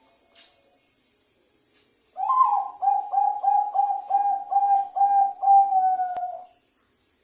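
Bangkok-line zebra dove (perkutut) singing one cooing phrase: a higher opening note, then a quick run of about eight evenly spaced coos, ending on a longer note that slides slightly down.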